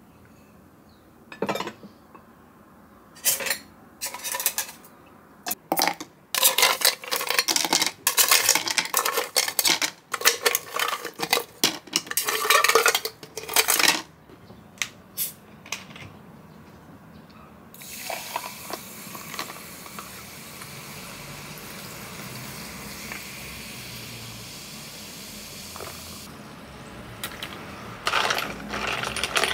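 A stainless cocktail shaker with ice, shaken hard in dense clattering bursts, then ice tipped out of it into a glass mason jar. After a quieter steady hiss, ice clinks in the jar as it is stirred with a straw near the end.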